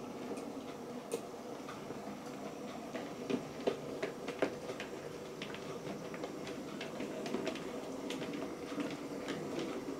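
OO gauge model Andrew Barclay 0-4-0 saddle tank locomotive running with a short train of open wagons. There is a steady whir of the small motor and rolling wheels, with irregular clicks of the wheels over rail joints and pointwork, sharpest a few seconds in.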